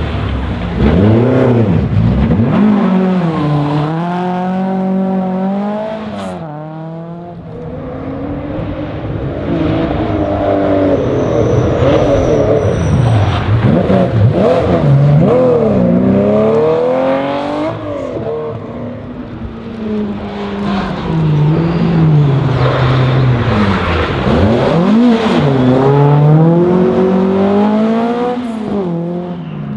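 Historic rally cars, Volvo 240s and a Porsche 911 among them, driving hard past one after another, each engine revving up through the gears with the pitch climbing and dropping back at every shift.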